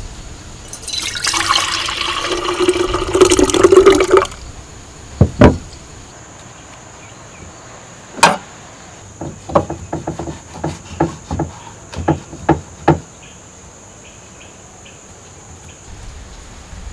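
Water poured into an empty glass jug for about three seconds. A couple of dull knocks and a sharp click follow, then a quick run of light taps and clicks on a wooden board.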